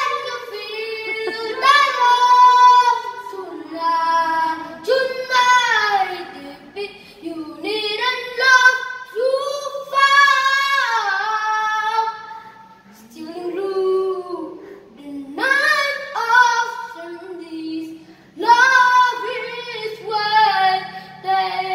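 A young boy singing solo and unaccompanied, in loud, high sung phrases of held and gliding notes with short breaks for breath.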